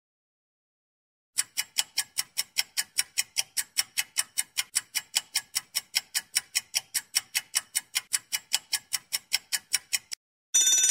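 Clock-ticking countdown timer sound effect: even, sharp ticks at about four a second for nearly nine seconds, starting after a short silence. A ringing bell sound effect begins just before the end.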